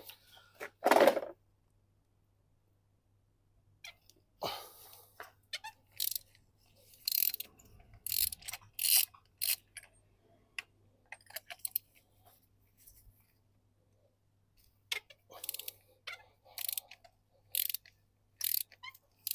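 Ratchet wrench clicking in short runs of back-strokes while the coil packs and spark plugs are being undone. There is one loud clunk about a second in.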